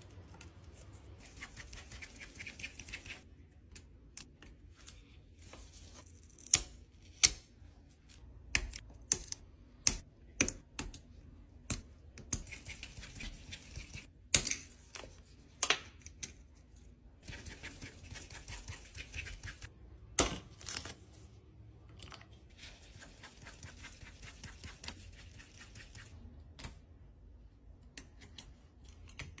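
Irregular sharp clicks and taps with stretches of scratchy scraping: small hard parts and tools being handled on a smartphone during a repair.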